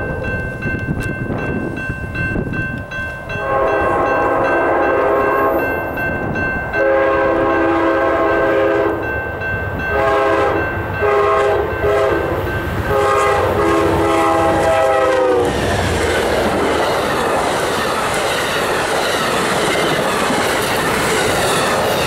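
Amtrak GE P42DC locomotive horn sounding a crossing sequence with extra blasts: two long blasts, a quick run of short ones, then a final long blast that drops in pitch as the locomotives pass. Then comes the loud rushing clatter of the passenger train's wheels going by at speed.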